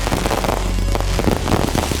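Fireworks going off in quick succession: dense crackling over a heavy, continuous low rumble.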